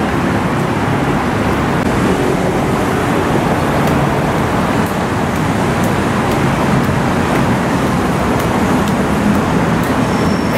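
Steady low engine rumble under a continuous rushing noise, holding the same level throughout.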